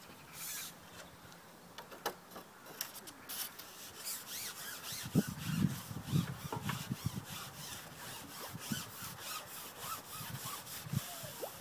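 Carbon fishing pole being handled and pushed out, its sections rubbing and scraping in a string of short rasps. There are a few low thumps about halfway through.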